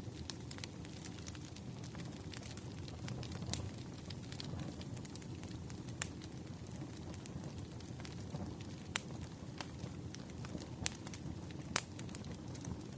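Wood fire crackling: a steady low rush with scattered sharp pops and snaps, a few louder ones standing out, at about six, nine, eleven and twelve seconds in.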